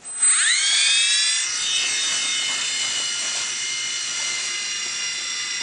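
Blade mCX micro coaxial RC helicopter's small electric motors and rotors spinning up: a whine that rises quickly in pitch over the first second or so, then holds steady.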